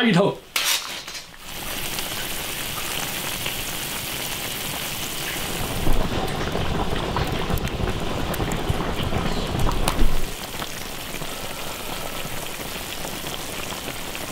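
Spicy stew boiling in a large wok over a wood fire, a steady bubbling hiss. Two short louder knocks come about six and ten seconds in.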